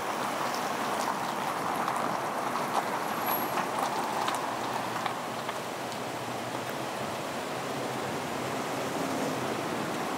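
Steady road and wind noise from a car rolling slowly up to an intersection and stopping, picked up by a camera on the car's roof, with a few light ticks in the first half. The noise eases a little once the car has stopped and traffic passes in front.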